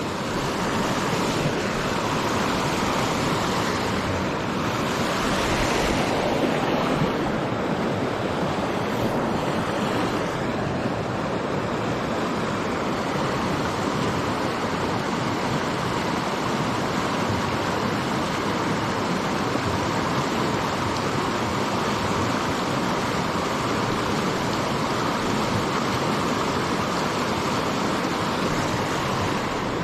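River water rushing steadily, a continuous even noise with no breaks.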